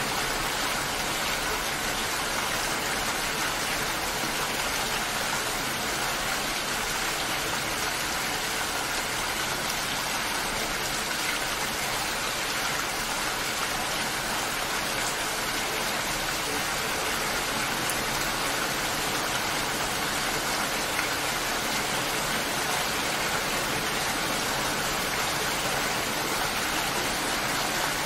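Steady rainfall: an even, unbroken hiss of rain, with no thunder or separate drops standing out.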